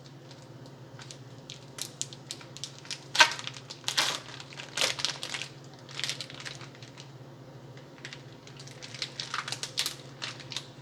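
Plastic food packaging crinkling and rustling in short, irregular bursts as it is pulled open and handled, over a low steady hum.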